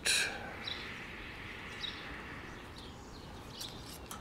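A few faint, scattered bird chirps over quiet background noise, with a short hissing burst right at the start.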